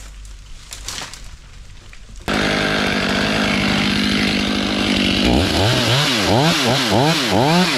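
Two-stroke chainsaw that comes in abruptly about two seconds in, running at a steady speed. From about five seconds in it is revved up and down repeatedly, about twice a second.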